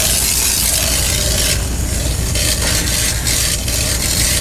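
Aerosol air freshener (apple cinnamon) sprayed from a can: a loud hiss in several long bursts with short breaks between them.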